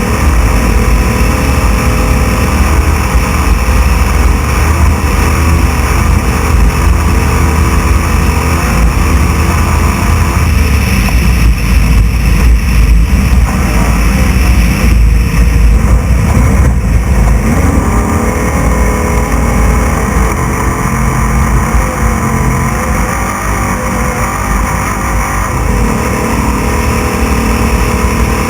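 Class 6100 off-road race truck's engine running hard at racing speed, heard loud from on board, its note rising and falling with the throttle over heavy rumble and rattle from the rough ground.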